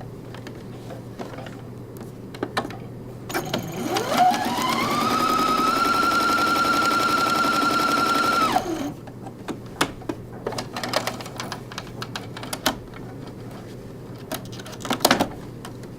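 Electric sewing machine stitching: its motor whine rises as it speeds up, runs steady for about four seconds and stops abruptly. Scattered clicks and taps of handling the machine and fabric come before and after the run.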